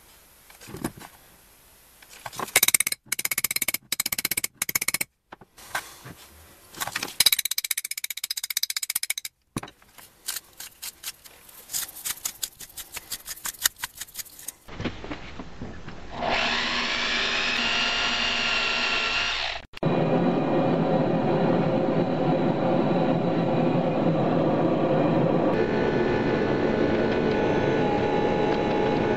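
Metal spoon clinking and scraping as iron powder is packed into a steel container full of cut cable ends. About fifteen seconds in, a power tool's motor whines up to speed and runs for a few seconds. From about twenty seconds on, a gas forge burner runs steadily as it heats the sealed container.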